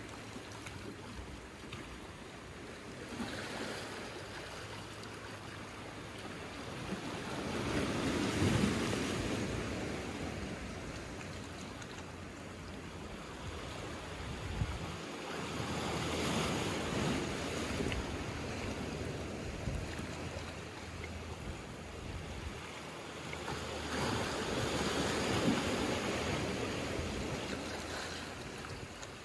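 Small ocean waves washing in over rocks and a pebble shore, the surf swelling three times at intervals of about eight seconds, then easing back between swells.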